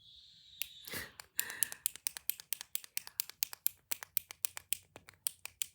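A clicky toy clicked rapidly close to the microphone, many sharp clicks a second, starting after a brief breathy hiss in the first second.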